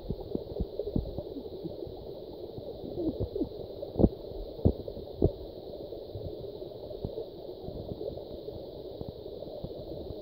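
Muffled underwater water noise picked up by a submerged phone microphone in a stream: a low gurgling rumble with scattered clicks and knocks, the loudest about four seconds in and two more soon after.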